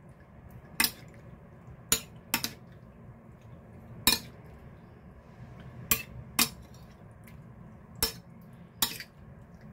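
Metal spoon clinking against a ceramic plate while mixing marinade into sliced raw pork: eight sharp clinks at uneven intervals, some in quick pairs.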